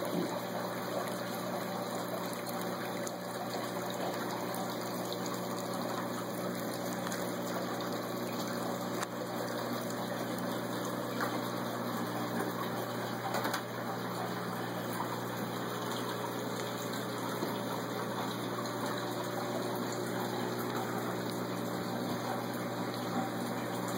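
Steady rush of water circulating in a saltwater stock-tank aquarium, over a constant low electrical hum from its pumps.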